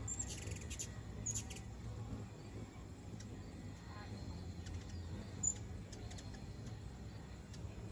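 Hummingbirds at feeders giving short, very high squeaky chips: a few near the start and a sharp one about five and a half seconds in. A faint low rumble runs underneath.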